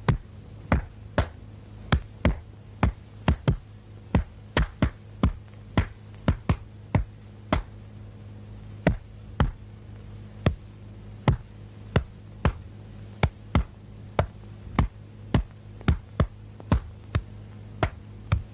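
Sharp knocks of forearms and hands striking and blocking in Wing Chun free sparring, coming irregularly at about two a second, over a steady low hum.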